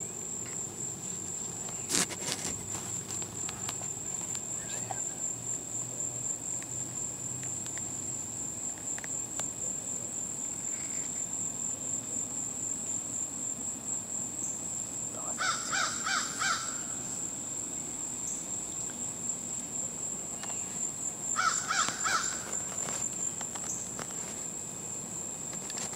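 Steady high-pitched insect drone in summer woods, with two short series of crow caws, about halfway through and again near the end. A single sharp click sounds about two seconds in.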